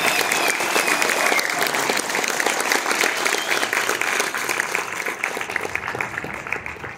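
Theatre audience applauding, dense clapping that dies down a little toward the end.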